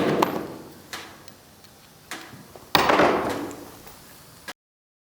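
A few sharp knocks and clanks from tools and parts being handled, the first and fourth loudest, each ringing off over a second or so. The sound cuts out abruptly to dead silence about four and a half seconds in.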